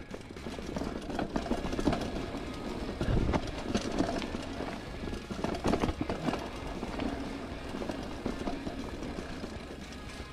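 A mountain bike rolling fast down a dirt trail: tyres running over dirt and roots, with the bike rattling and clattering at every bump.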